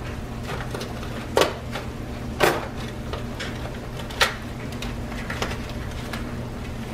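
Package of Mueller's pot-size spaghetti being worked open by hand: four sharp crackles or snaps about a second apart, with fainter ticks between, over a steady low hum.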